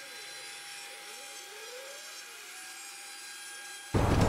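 A faint steady hum with slowly wavering tones, then about four seconds in, the noise of a ShopBot CNC router cutting plywood comes in suddenly and loudly.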